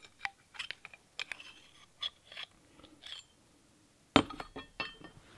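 Light clicks and clinks of metal air-gun parts being handled, the Crosman 761XL's receiver tube and its brass valve assembly turned over in the hands. A louder knock comes a little past four seconds in, followed by a quick run of small clicks.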